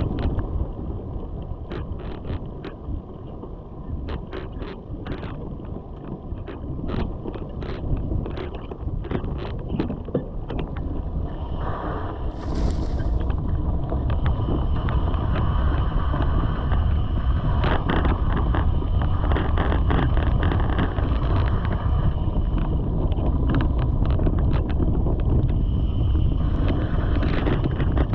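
Mountain bike riding over a leaf-covered dirt trail: a steady low rumble of tyres and wind buffeting the microphone, with frequent sharp clicks and knocks as the bike goes over rough ground. It grows louder and steadier about halfway through as the pace picks up.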